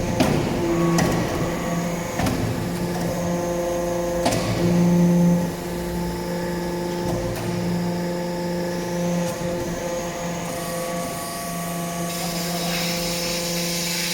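Hydraulic metal-chip briquetting press running: a steady hum with a few sharp clicks, the loudest of them about a second in and just past four seconds.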